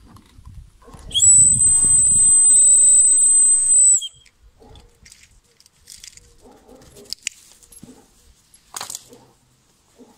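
A whistle blown in one long, steady, high note for about three seconds, bending slightly at its start and end. Afterwards only faint scattered clicks and small sounds.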